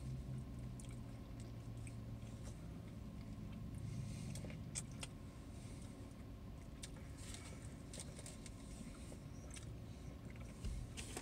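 Faint chewing and mouth noises from people eating burgers, with scattered small clicks, over a steady low hum in a car's interior.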